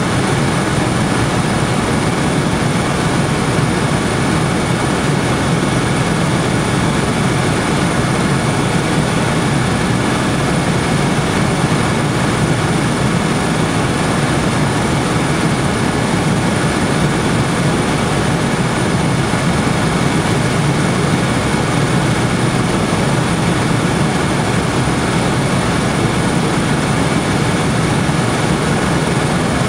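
Steady drone of an aircraft in flight, heard from on board: engine and airflow noise at a constant level, with a faint steady whine above it.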